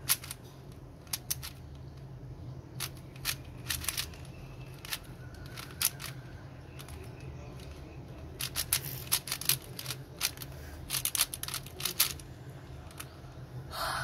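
A 4x4 plastic puzzle cube being turned by hand: irregular sharp clicks and clacks of its layers snapping round, coming in quick flurries and busiest in the second half, over a low steady hum.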